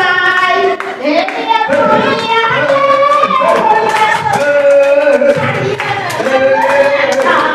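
A woman singing into a microphone in long, held notes that slide between pitches, with hand claps scattered through it.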